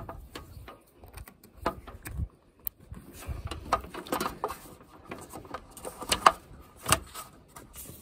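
Hands working solar panel cables and their plastic plug-in connectors: a series of irregular clicks, knocks and rattles as the negative lead is connected, the sharpest snaps about six and seven seconds in.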